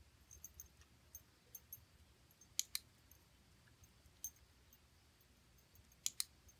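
Dog-training clicker sounded twice, each time a sharp double click about a sixth of a second apart, once before a third of the way in and once near the end, marking the dog's right move at the cone. Faint scattered ticks between.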